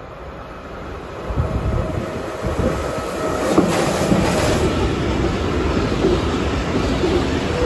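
Electric locomotive hauling an intermodal freight train out of a tunnel and past at speed: the low rumble swells sharply about a second in as the train emerges, with a brief hiss as the locomotive goes by, then the steady rolling rumble and clatter of container wagons.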